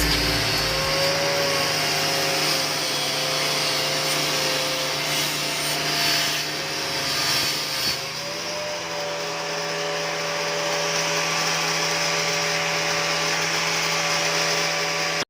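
Angle grinder motor running in a homemade table saw with a steady high whine, its disc cutting wood with a rough rasp that is strongest about five to eight seconds in. The motor's pitch picks up slightly just after that.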